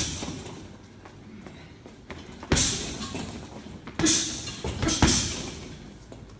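Boxing gloves striking a hanging Blitz heavy punch bag with light punches. There is one hit about two and a half seconds in, then a quick run of three about a second and a half later.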